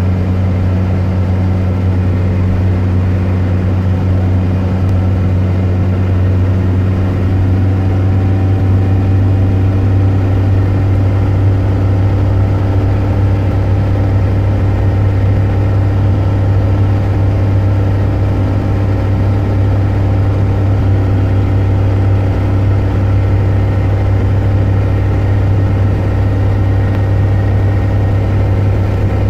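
Car driving at steady highway speed, heard from inside the cabin: a steady low drone of engine and tyre noise.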